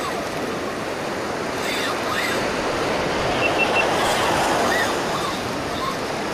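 Ocean surf breaking and washing up the beach, a steady rush that swells a little about three to four seconds in.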